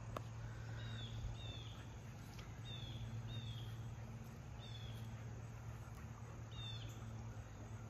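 Small bird chirping: short, high, slightly falling calls, mostly in pairs, repeated about four times over a steady low hum of outdoor background noise.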